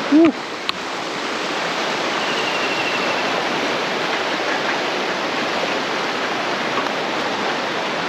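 Steady rush of fast-flowing river water, with a short vocal exclamation just at the start.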